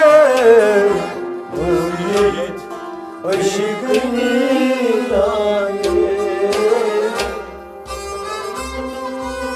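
Kashmiri folk music: a held sung note falls away in the first second. Harmonium and rabab then carry on, with steady beats on a clay-pot drum (noot) about twice a second.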